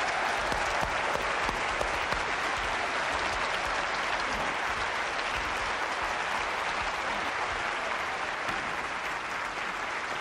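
Concert-hall audience applauding, a dense, steady clapping that eases off slightly near the end.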